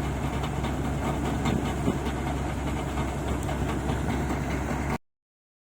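Engine of a paddy-grain machine running steadily under a noisy mechanical clatter, cutting off abruptly about five seconds in.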